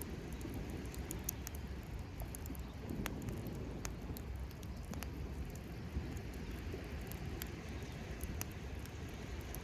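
Campfire crackling, with scattered sharp pops and snaps over a steady low rumble.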